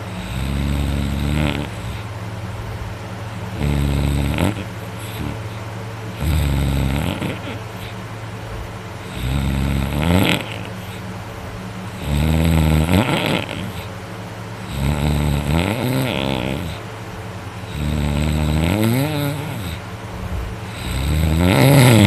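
A person snoring loudly in deep sleep, one snore every two and a half to three seconds, about eight in all.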